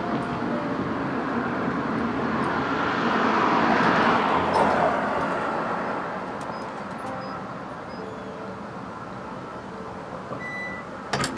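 A road vehicle passing by: its noise swells to a peak about four seconds in, then slowly fades away. A couple of sharp clicks come near the end.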